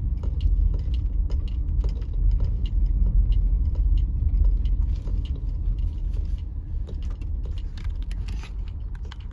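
Car driving slowly, heard from inside the cabin: a steady low rumble of engine and tyres with scattered light clicks and rattles. It eases a little in the second half.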